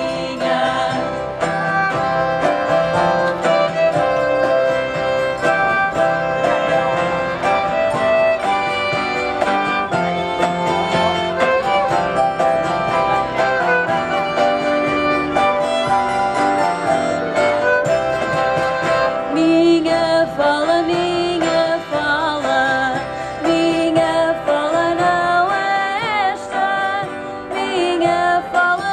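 Live folk song: violin and guitar playing with women's voices singing into microphones, the voices standing out more in the second half.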